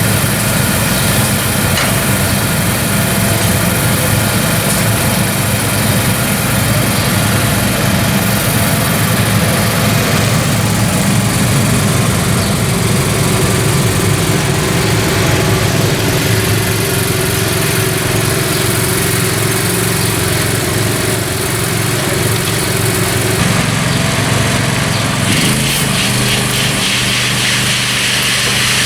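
An engine running steadily, its note changing about three-quarters of the way through, with a fast rhythmic rattle near the end.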